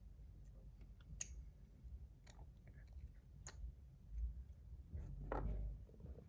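Faint handling noise of a brass fidget spinner being worked in the hands, with a few sharp small clicks of its metal parts, the loudest about five seconds in.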